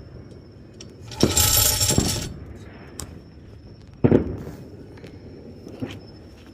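Backyard New Year's fireworks going off around the neighbourhood. A bang about a second in is followed by about a second of loud dense hiss, then scattered sharp reports. The largest is a boom with a trailing rumble about four seconds in, and a smaller pop comes near the end.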